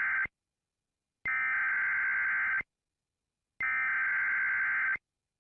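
Repeating electronic alert tone from a mock emergency alert: a steady beep, the tail of one and then two more, each about a second and a half long with about a second of silence between them.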